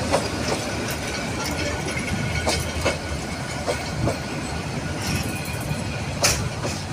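Bangladesh Railway intercity passenger coaches rolling past close by: a steady rumble of steel wheels on the rails, with sharp clacks at uneven intervals as the wheels cross rail joints.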